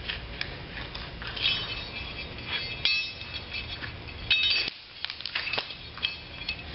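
Metal clinking and rattling as a steel Cable Choker hose restraint is handled onto a high-pressure hydroblast hose: a string of short, ringing clinks, loudest in a cluster about four and a half seconds in.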